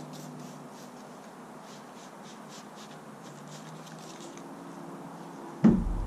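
Handheld spray bottle spritzing hunting clothes: a run of faint, short hisses. A loud thump near the end.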